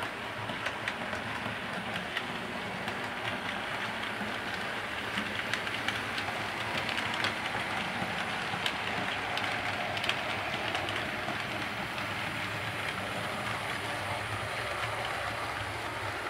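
OO gauge model train, two pannier tank locomotives double-heading a rake of coaches, running along the track with a steady rumble and scattered clicks of wheels over the rail joints.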